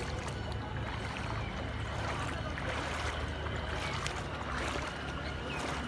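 Floodwater splashing and lapping around a small boat moving through it, over a steady low rumble.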